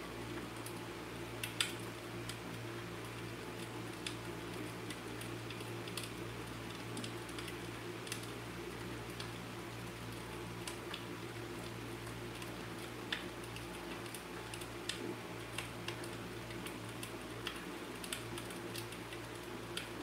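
Fireplace crackling: sparse, irregular pops and ticks over a steady low hum.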